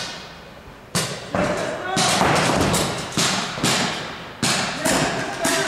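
Pump paintball markers firing and paintballs smacking into inflatable bunkers: a string of sharp pops, roughly one every half second after the first second, echoing in a large indoor hall, with players shouting.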